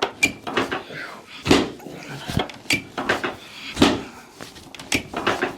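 Dull thumps and small creaking clicks from the padded chiropractic table and the patient's body as the chiropractor pushes the rib cage and shoulder into a rib-torque correction, with two stronger knocks a couple of seconds apart.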